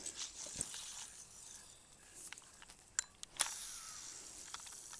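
Faint handling noise close to the microphone: scattered small clicks and ticks, then a soft rustle starting about two-thirds of the way in, as fishing gear and the recording device are handled.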